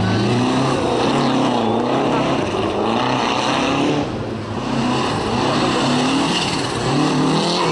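Rally car engines revving hard as cars pass, the pitch climbing and dropping again and again with throttle and gear changes. The sound eases off briefly about four seconds in, then picks up again.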